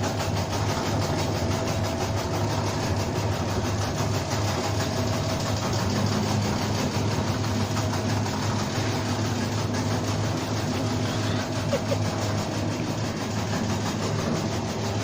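Motorised tobacco shredding machine running steadily with a fast, even rhythmic chatter from its cutting mechanism.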